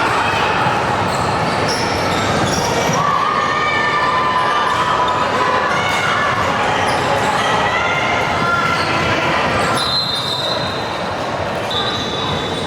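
Youth basketball game in a gym: the ball bouncing, sneakers squeaking on the court and players and spectators calling out, echoing in the hall. Two short, steady, high tones sound near the end.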